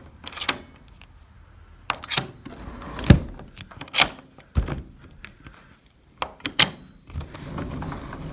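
A sliding door's newly fitted replacement latch being worked: a series of sharp clicks and knocks, about seven, at uneven spacing, with a light scrape near the end.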